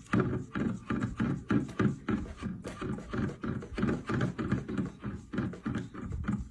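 A cat repeatedly tapping a plastic water bottle with its paw: a quick, even run of taps, about three to four a second.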